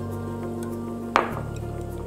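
Background music with held tones, and one sharp clink a little over a second in.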